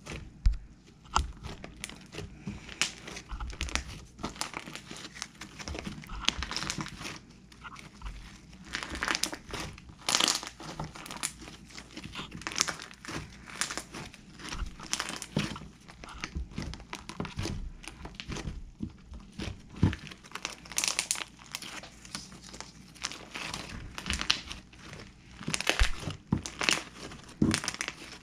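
Handmade slime being squeezed and stretched by hand, giving a steady stream of irregular small pops and crackles.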